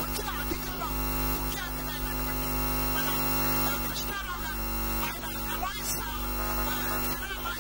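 Steady electrical mains hum and buzz, with faint voices of people talking in the background.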